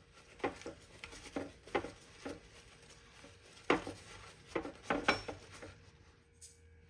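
A paper towel rustles and dabs on raw shell-on shrimp in a nonstick frying pan as they are patted dry. It makes a run of about ten short pats and crinkles, the loudest a little past halfway.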